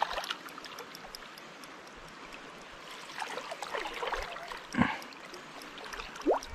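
River current flowing, with short splashes from a hooked trout thrashing at the surface beside the landing net.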